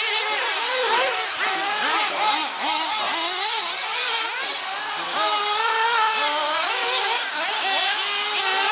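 Several 1/8-scale RC buggies racing together, their motors repeatedly revving up and falling back as they are throttled through the corners, with many overlapping pitches.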